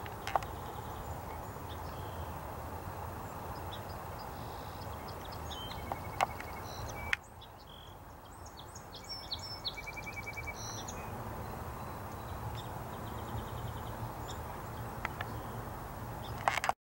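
Outdoor field ambience: a steady low background rumble with small birds chirping and trilling, busiest around the middle. A few sharp clicks break in, and the background drops suddenly about seven seconds in.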